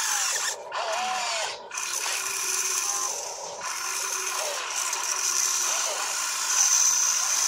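Electric motors and gearboxes of a toy RC excavator whining as the boom and bucket dig into soil, the pitch rising and falling with the load. The whine cuts out briefly twice, about half a second and a second and a half in.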